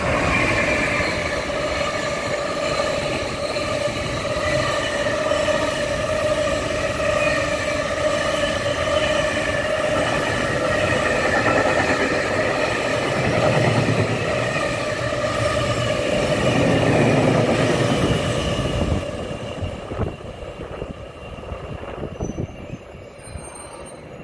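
EF210 electric freight locomotive and its long train of freight wagons passing at speed, wheels running over the rails with a steady high-pitched ringing on top. The noise drops off about nineteen seconds in as the last wagon clears.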